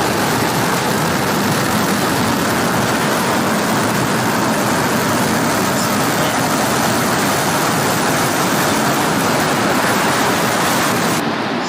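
Steady roar of SpaceX Starship rocket engines played back from a launch video, a loud, even rushing noise; the highest part of it cuts off abruptly near the end.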